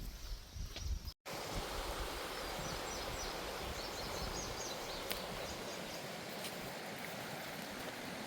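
Steady rushing of a river's flowing water, with faint high bird chirps a few seconds in. In the first second, footsteps and wind on the microphone come before an abrupt cut to the water.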